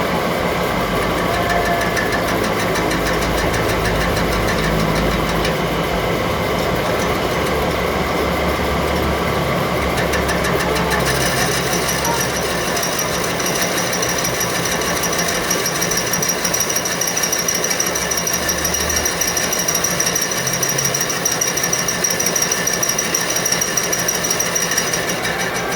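Metalworking machinery running with a fast, steady rattle; a high-pitched whine comes in about eleven seconds in and holds.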